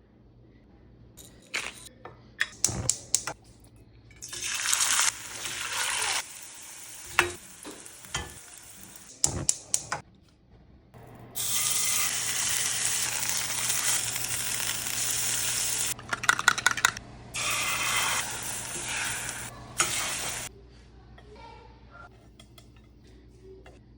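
Food sizzling as it fries in a hot pan, in two stretches that start and stop abruptly, with sharp clicks and knocks of utensils against the pan in between.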